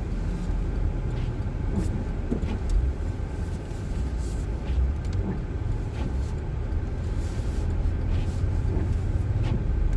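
Inside a front-wheel-drive car rolling slowly over snow-covered streets: a steady low rumble of engine and tyres, with scattered faint clicks and knocks.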